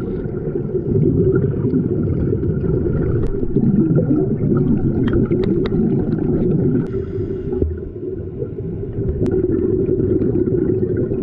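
Muffled underwater rumble picked up through an action camera's waterproof housing, mostly scuba divers' exhaled air bubbling from their regulators, with a few sharp clicks. It dips for a moment about two-thirds of the way through.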